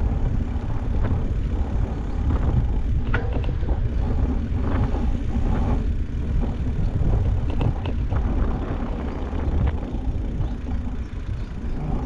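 Steady low wind rumble and tyre noise on a GoPro action camera's microphone while riding a mountain bike, with scattered light clicks and rattles.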